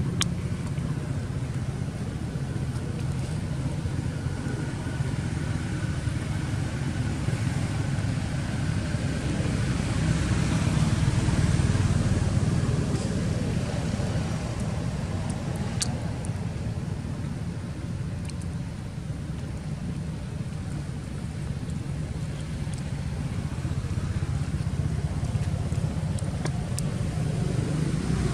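Steady low rumble of distant motor traffic, swelling for a few seconds about ten seconds in.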